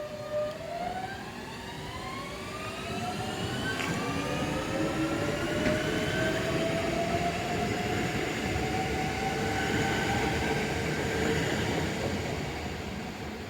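Electric multiple unit pulling away: its traction inverters and motors whine in several rising tones that climb for several seconds, jump in pitch once, then level off and fade, over the rumble of the wheels on the rails.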